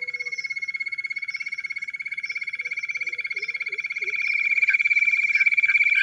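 Jungle bush quail call: one continuous, very rapid pulsing trill held at a steady pitch, growing louder about four seconds in.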